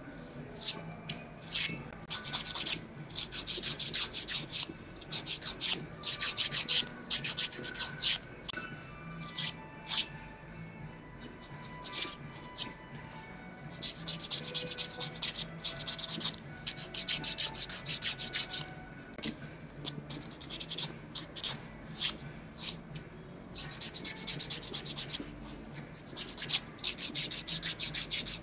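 Hand nail file rasping across a fingernail in runs of quick back-and-forth strokes, with short pauses between runs.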